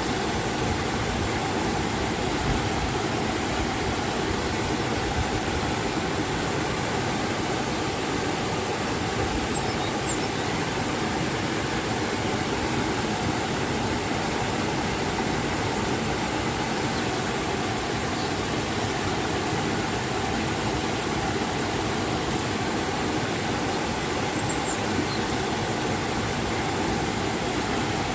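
Waterfall and river water rushing steadily, an even full hiss of falling and flowing water.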